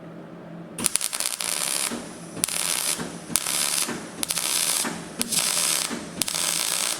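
Electric arc welding on thin sheet steel: about a second in, the arc starts crackling and hissing in six short runs of half a second to a second each, with brief pauses between them. The runs are kept short to fill the gaps between tack welds without blowing holes in the thin panel.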